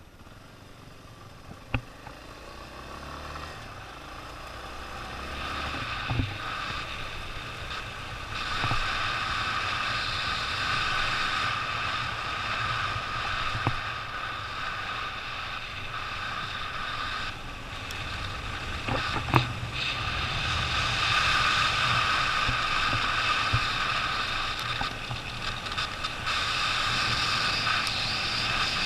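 Motorcycle riding along a dirt trail: steady engine and road noise that grows louder, with a few sharp knocks from the bike over the rough ground.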